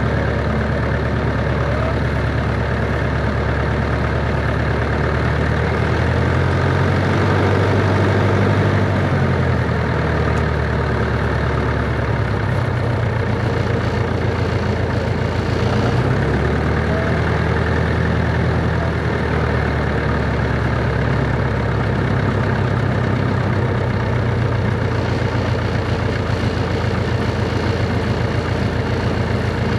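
A Cessna 140's air-cooled flat-four engine running steadily at low power, like a slow idle. Its pitch shifts briefly twice, once about a third of the way in and again a little past halfway.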